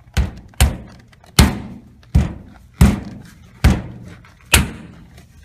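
Seven hard knocks against the steel body of a gun safe while the outlet kit's plate is fitted, spaced unevenly under a second apart, each with a short ring.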